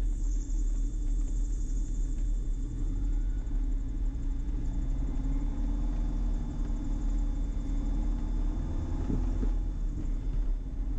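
The twin Austro AE300 turbo-diesel engines and propellers of a Diamond DA42, heard from inside the cockpit as a steady low drone at taxi power.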